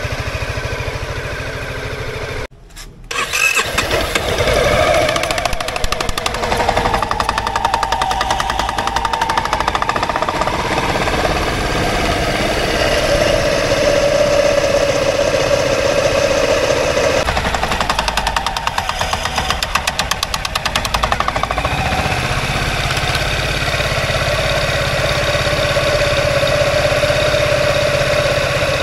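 Honda Forza 250 (MF10) scooter's single-cylinder engine running on the center stand with its CVT cover off, so the spinning variator pulleys and drive belt are heard in the open; this is just after an S-Matic electronic CVT initialization. The engine speed shifts up and down a few times, and the sound cuts out briefly about two and a half seconds in.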